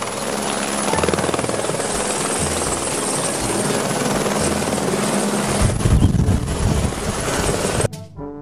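Light turbine helicopter of the Écureuil (AS350/H125) type hovering and flying close by: rapid rotor-blade chop over a steady high turbine whine, louder for a moment near the middle. The sound cuts off abruptly near the end, giving way to music.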